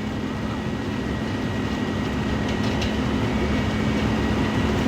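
Diesel engines of a concrete pump truck and ready-mix trucks running during a concrete pour: a steady low rumble with a constant hum, growing slowly louder.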